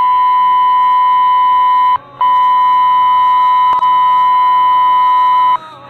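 Fire dispatch alert tone heard over the radio: a steady, unwavering tone, held, broken off briefly about two seconds in, then held again until it cuts off near the end. It is the attention signal that comes before units are dispatched to a call.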